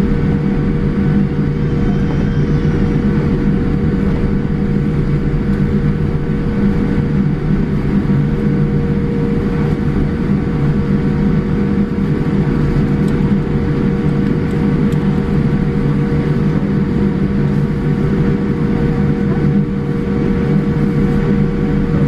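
Steady hum of a Boeing 787-8's engines and air systems at taxi power, heard inside the passenger cabin, with a few constant tones held in it and no change in pitch.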